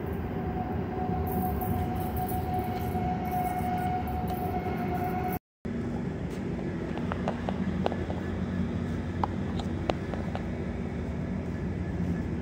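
Rumble of a departing bilevel passenger train with a thin steady whine over it. It cuts off abruptly about five seconds in, and a steady low rumble with scattered sharp clicks follows.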